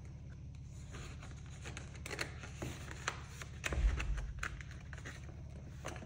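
Paper bills and cash envelopes being handled: scattered soft rustles and crinkles, with a dull low thump about four seconds in, over a steady low hum.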